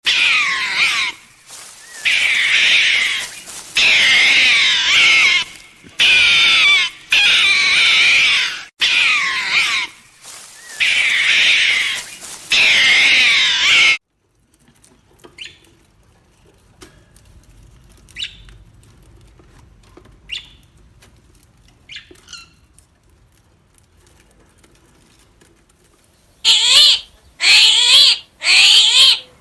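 Animal calls: a run of loud, high, wavering cries about a second each with short gaps between. Then a quiet stretch with a few brief chirps, and loud cries again near the end.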